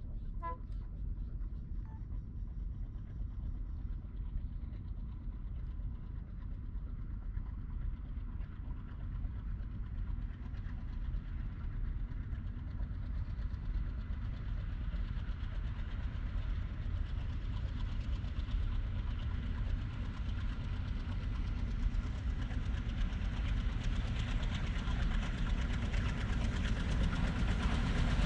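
The Panchagarh Express passenger train approaching along the line, heard as a rumble that grows steadily louder and brighter as it nears.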